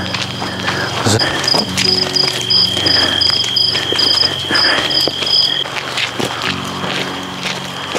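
Crickets singing at night: one steady high trill together with a pulsing chirp about three times a second. They start about a second in and stop after about four and a half seconds, over footsteps and a low steady hum.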